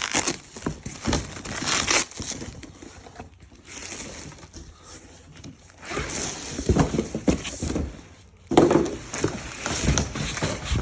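Irregular rustling, crinkling and knocking of packaging being handled during unboxing.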